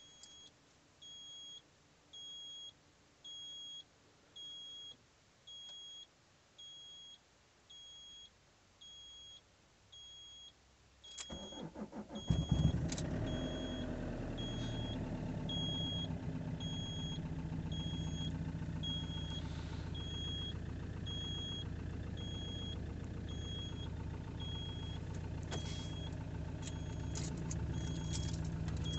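A dashboard warning chime beeps about once a second. About 11 seconds in, the Sofim 2.8 JTD four-cylinder common-rail diesel cranks for about a second in a −20 °C cold start, catches and settles into a steady idle, heard from inside the cab, with the chime still beeping over it.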